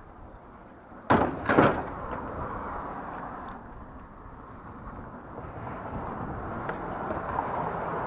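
Two loud bangs about half a second apart, a little after the start, then a steady vehicle noise that slowly grows louder.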